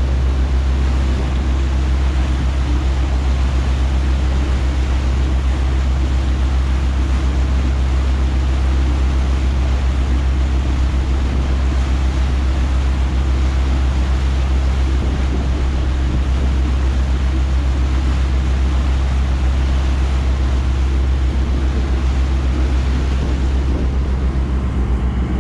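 A fishing boat's engine running steadily under way, a deep, even drone, with the rush of the wake churning behind the stern.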